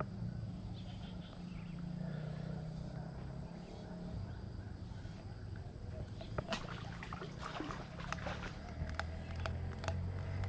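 Close handling noise of a handline spool and a caught fish: scattered sharp clicks and taps from about six and a half seconds in, over a low steady rumble.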